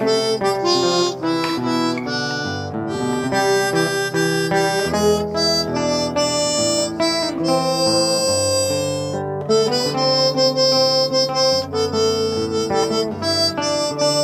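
Harmonica playing a melody of held notes, cupped in both hands, over a backing accompaniment that carries lower notes.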